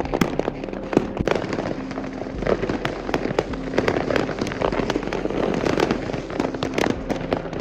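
Many fireworks and firecrackers going off at once, a dense, irregular barrage of bangs and crackling with no pause.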